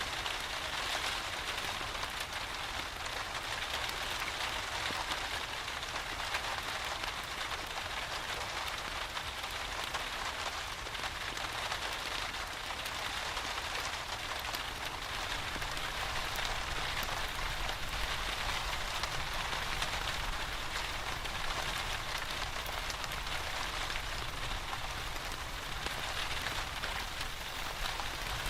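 Steady rain falling, an even patter of many drops with fine ticks through it.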